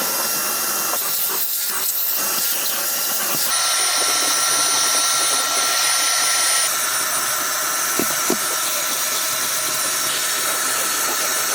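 Portable carpet shampooer running: a steady motor whine under a loud sucking hiss, which grows brighter about three and a half seconds in.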